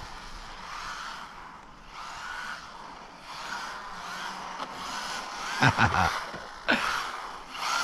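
MJX Hyper Go 1/14 scale RC rally car running on a 2S LiPo, its electric motor whining up and down as it is driven. A few loud knocks come about three-quarters of the way through.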